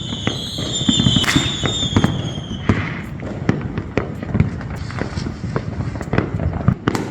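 A dense, irregular run of sharp bangs and cracks, several a second, with a high whistle slowly falling in pitch through the first three seconds.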